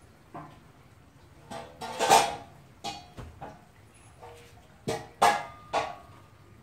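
A series of sharp clatters and knocks, the loudest about two seconds in and again around five seconds in, a few of them leaving a short ringing tone.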